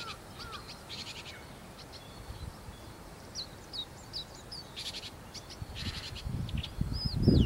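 Long-tailed shrike singing a varied, jumbled song: short arched whistles, harsh raspy chatter, and a run of quick high downslurred whistles, which the observer takes for imitations of other birds. A low rumble builds near the end.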